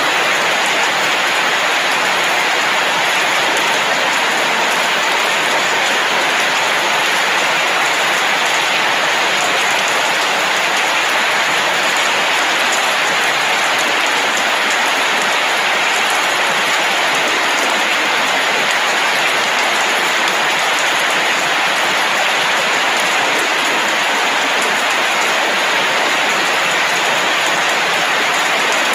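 Steady rainfall, an even hiss that holds constant without breaks or single drops standing out.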